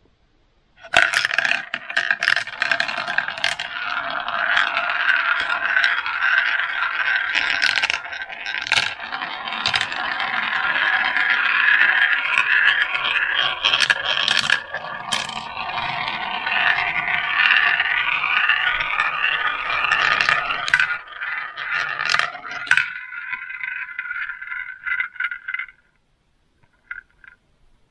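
Two marbles rolling down a plastic marble run: a continuous rolling rattle and scrape as they circle through plastic funnel bowls and drop through tubes, broken by sharp clicks where they hit the track. Over the last few seconds the sound thins out, then stops as the marbles come to rest, with a couple of faint clicks after.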